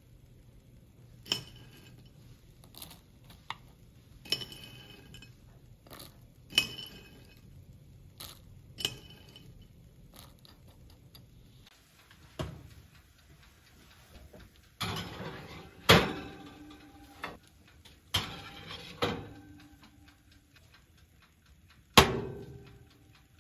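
Metal muffin tin clinking and knocking against a wooden board a few times with a short metallic ring, then metal pans scraping and clattering onto the wire racks of a countertop oven, ending in a sharp knock near the end as the glass oven door is closed.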